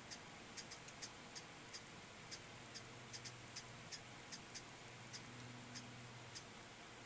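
Ruby-throated hummingbirds giving faint, short, high chip calls at irregular intervals, about two or three a second.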